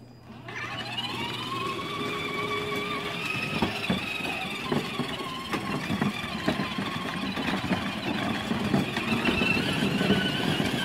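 Electric drive motors and gearboxes of a child's battery-powered ride-on toy Ford Ranger whining as it drives, rising in pitch as it pulls away about half a second in and then holding steady. Its plastic wheels add knocks and rattles as they roll over paving and dirt.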